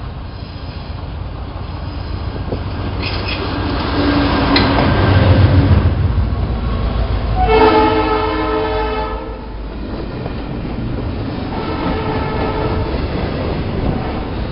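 Diesel freight locomotive passing close by, its low engine rumble building to a peak. A horn blast of about a second and a half sounds as it goes by. Then freight cars roll past with wheel clatter and a faint wheel squeal near the end.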